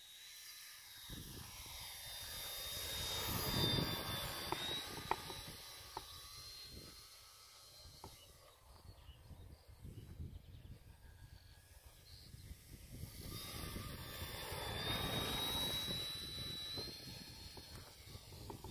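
Electric motor and propeller of a Mercury Galahad radio-controlled model aeroplane flying past twice. Each pass is a high whine that swells and fades, loudest about four seconds in and again about fifteen seconds in.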